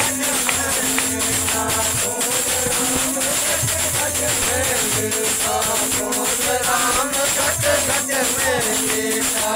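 A harmonium plays a steady drone and melody while men sing a Hindu devotional bhajan (kirtan), with rhythmic hand clapping and jingling percussion keeping the beat.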